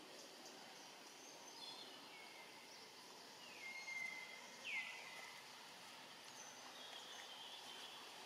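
A bird calling several times over a faint steady outdoor hiss: high calls that slide down in pitch and level off, the loudest about halfway through.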